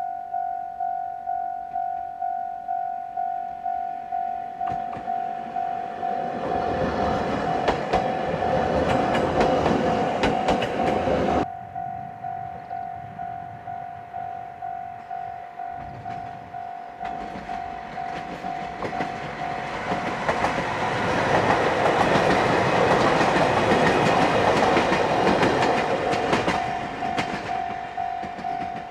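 Japanese railway level-crossing warning bell ringing steadily, about two rings a second. Trains pass over the crossing twice with loud rumbling and wheel clatter. The first passing cuts off suddenly about eleven seconds in, and the second runs from about eighteen to twenty-seven seconds in.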